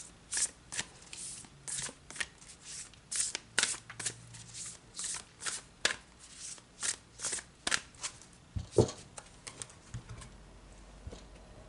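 A deck of large oracle cards being shuffled by hand, a quick papery swish about two to three times a second, with one louder knock near the end as the shuffling stops.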